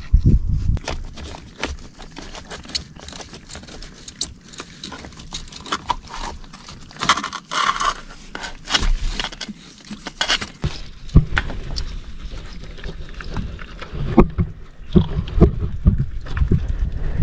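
Hand and arm scraping and rustling among dry mangrove roots and sticks and in wet mud while digging into a crab hole, with irregular crackles and clicks of wood. Low thumps near the start and again in the last few seconds.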